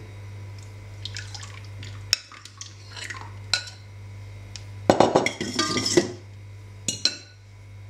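Metal fork scraping and clinking against a glass bowl and a small stainless steel saucepan as a thick egg-and-yogurt sauce is poured into the pan and stirred. Scattered clinks, then a busy run of scraping and clinking about five seconds in.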